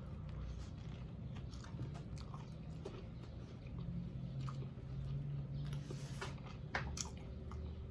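Close-miked chewing of a fried whiting sandwich on crusty Italian bread: soft wet mouth sounds with scattered small crunches and clicks, a few sharper crackles near the end.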